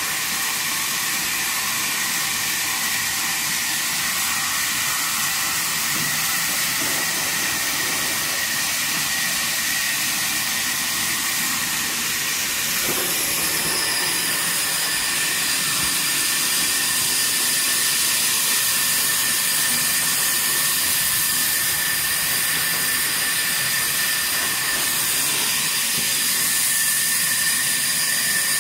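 Sawmill log band saw running: a steady high hiss with a whine. A higher whine joins about halfway through.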